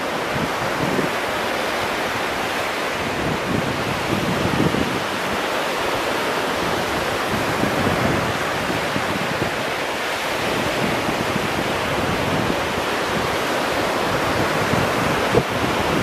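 Small ocean waves breaking and washing onto the beach in a steady, unbroken hiss of surf, with wind buffeting the microphone in low, fluttering gusts.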